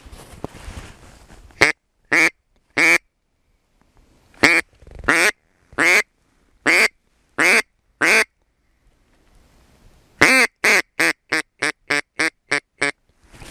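Mallard hen-style quacking: three single quacks, then six evenly spaced quacks, then a quick descending run of about ten that speed up, shorten and fade.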